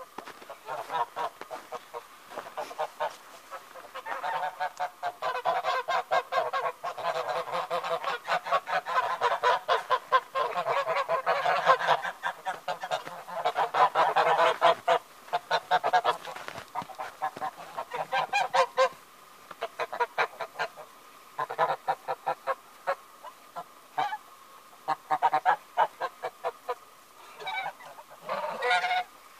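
Flock of white domestic geese cackling and honking, many short calls overlapping in quick succession. The calling is densest from about four to sixteen seconds in, then comes in shorter spells.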